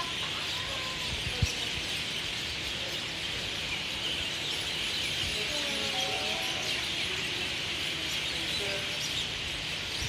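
A large flock of common mynahs calling all at once in their evening roosting chorus: a dense, steady chatter of overlapping chirps and whistles. A low rumble of wind runs beneath it, and a single thump comes about a second and a half in.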